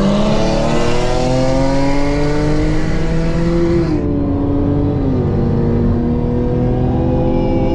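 Car engine at full throttle in a roll race, its pitch climbing steadily with two brief dips in pitch, a little before four seconds and about five seconds in.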